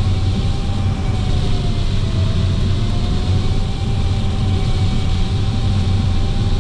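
Steady rushing airflow and low drone inside a glider cockpit on aerotow behind a tow plane, with a faint continuous tone that wavers slightly in pitch.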